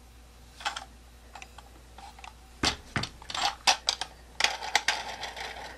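Hard plastic toy truck and trailer being handled: a few light clicks, then a cluster of sharper knocks about two and a half to four seconds in, and a denser clicking rattle from about four and a half seconds on as the trailer and its plastic wheels are handled.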